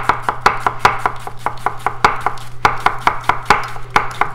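Chef's knife slicing an onion into thin half-moons, the blade knocking on a wooden cutting board in a fast, even rhythm of about six strokes a second.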